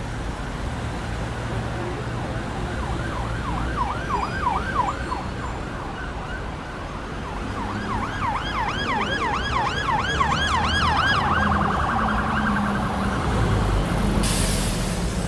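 A siren yelping in fast rising-and-falling sweeps, about four a second, in two spells, over a steady low traffic rumble. A short burst of hiss comes near the end.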